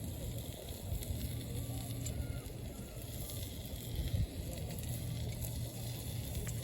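Small wood campfire crackling, with a few sharp pops over a low, uneven rumble.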